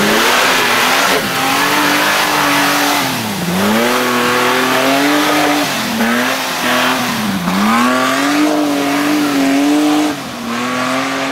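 Off-road 4x4's engine revving hard under load in mud and water, its pitch dropping sharply and climbing back about four times.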